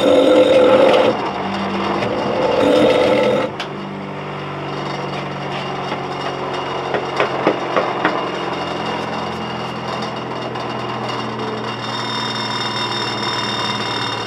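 Bench grinder grinding a rusty steel hammerhead against its wheel for the first three or four seconds, then running free with a steady hum once the metal is lifted off. A few light knocks come about seven to eight seconds in.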